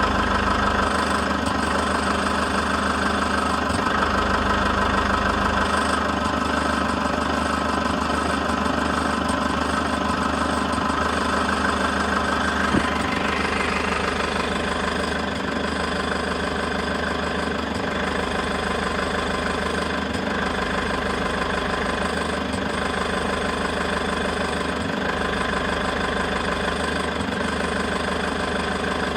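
Toyota HiAce KDH206V's 1KD-FTV diesel idling with its usual diesel clatter, mixed with an irregular jingling rattle like washers shaken on a bolt. The owner has been told this comes from the idle hunting as intake air and fuel swing back and forth, and suspects sludge in the EGR valve, intake manifold or throttle valve. One sharp tick about 13 seconds in.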